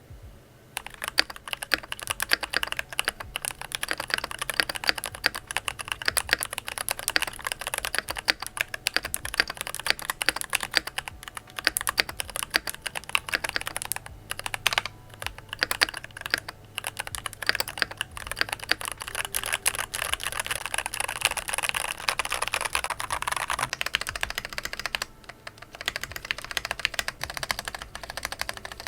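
Keychron K10 Pro full-size mechanical keyboard in stock form, being typed on steadily with its factory-lubed Keychron K Pro Brown tactile switches. The keystrokes come rapid and continuous from about a second in, with a couple of short pauses and a brief lull near the end.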